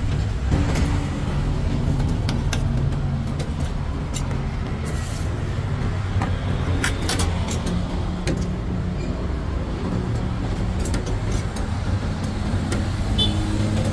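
Steady low rumble of engines from road traffic, with scattered light metallic clicks and scrapes of a spatula and knife against steel trays.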